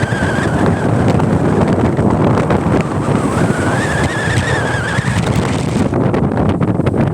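Pickup-truck taxi running on the road, with wind rushing over the microphone. In the middle a whine rises in pitch and holds for about two seconds as the truck speeds up; near the end the sound turns to choppy wind buffeting the microphone.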